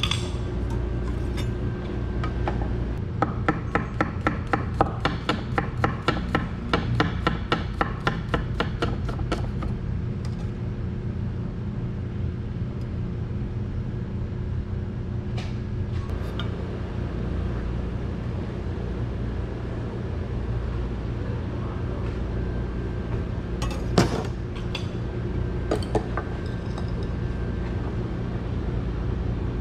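Kitchen knife chopping in quick, even strokes on a wooden cutting board for about seven seconds. Later come a sharp click and a few lighter ticks, over a steady low hum.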